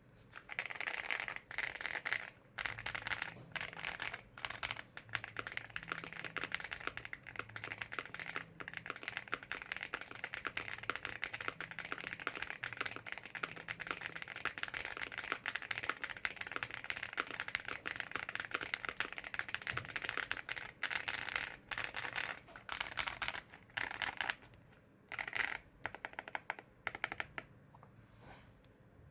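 Fast typing on a PMO Aurora 80 Black Pro aluminium-cased TKL mechanical keyboard with Kailh Lunar switches: a rapid, steady clatter of keystrokes that thins to a few separate presses near the end and then stops.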